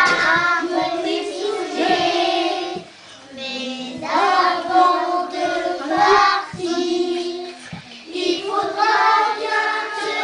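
Children singing a Christmas carol together, in sung phrases with brief pauses between them.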